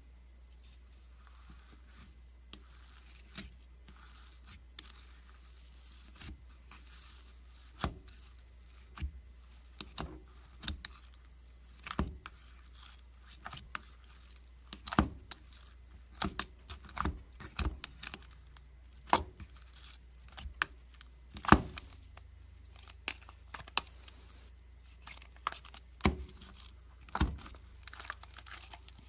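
Hands playing with slime: irregular sharp pops, snaps and crackles as it is pressed, stretched and torn, coming faster and louder in the second half.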